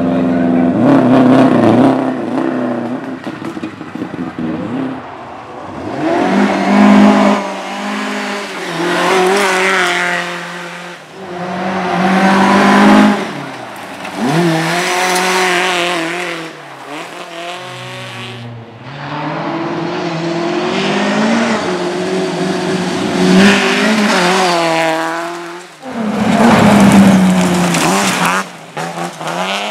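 Rally cars driven flat out on a sprint stage, one after another. The engines rev up and drop back at each gear change and lift, rising and fading as each car passes, with some tyre squeal and skidding.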